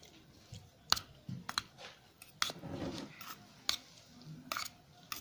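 Knife blade tossing chopped mango pieces in a stainless steel bowl, with soft squishing and a sharp metallic click about once a second as the blade strikes the bowl's side.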